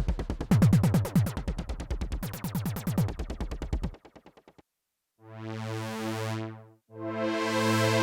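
Arturia OB-Xa V software synthesizer, an emulation of the Oberheim OB-Xa polysynth, playing a fast rhythmic sequenced patch with percussive hits and swooping low notes that stops about four seconds in. After a brief gap, a slow-attack pad chord swells in and fades, and a second chord swells in near the end.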